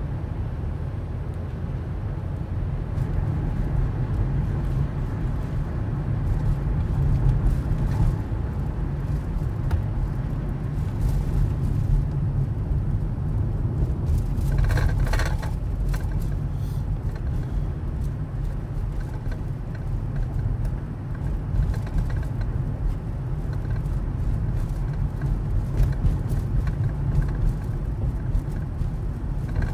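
Car driving, a steady low road rumble, with a brief louder noise about halfway through.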